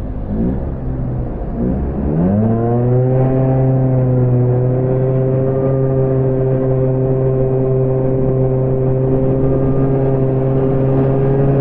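Honda Gyro scooter engine revving up twice from low speed, then holding a steady, even pitch as the belt drive pulls away.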